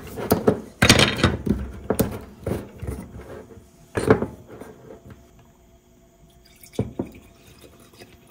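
Hard plastic clicking and knocking on a glass bottle as a 3D-printed wrench twists the cap off a Kikkoman soy sauce dispenser and a plastic funnel is set in its neck, the loudest knocks about a second and four seconds in. It then goes quieter, with a couple of soft knocks, and soy sauce starts pouring into the funnel near the end.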